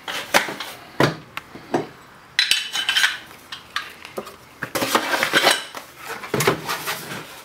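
Handling noise on a wooden workbench: metal gun parts clinking and knocking as they are set down and moved, a run of sharp irregular clicks. A cardboard mailing box is picked up and handled near the end.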